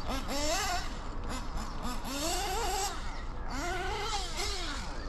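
Alpha .21 five-port nitro engine in an RC car revving up and easing off on the track, its pitch climbing and falling about three times as the car accelerates and lifts off.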